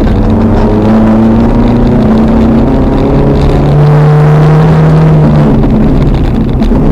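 Toyota RAV4 off-road racer's 3S-GE four-cylinder engine pulling hard, heard from inside the cabin. The revs climb slowly, drop lower about three seconds in, hold there, then rise again near the end, over a constant low rumble.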